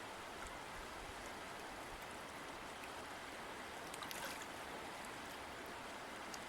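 River water flowing steadily, with a few small splashes and trickles about four seconds in.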